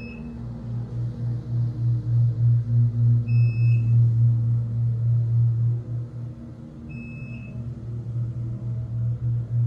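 OTIS 211 hydraulic elevator's pump motor running as the car travels: a loud, steady low hum that throbs about three times a second, from a motor that vibrates a lot. A short high beep sounds three times, about three and a half seconds apart.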